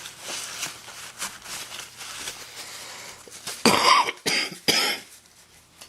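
A man coughing three times in quick succession, a chesty cough from a chest cold. Before the coughs there is only a faint scratchy background.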